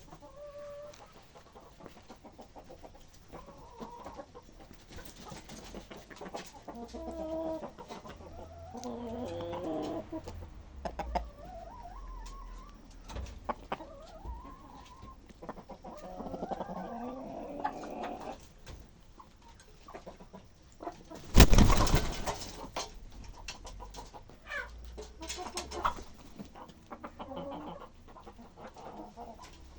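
Chickens clucking on and off in short, bending calls. About two-thirds of the way through there is a brief, loud rush of noise.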